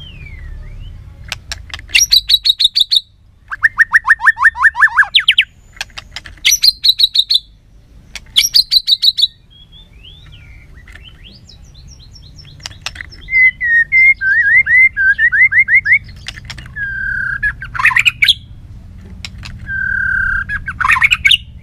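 White-rumped shama singing a loud, fired-up challenge song. Its varied phrases come in turn, with short pauses between them: fast rattling trills, then warbled notes and sharp rising whistles near the end.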